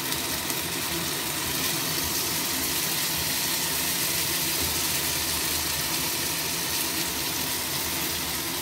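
Batter-coated chicken kebab pieces sizzling steadily in hot oil on a flat iron tawa over a high flame.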